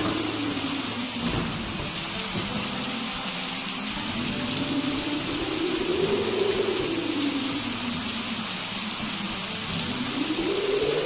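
Steady rain, with a low tone that slowly rises and falls in pitch beneath it.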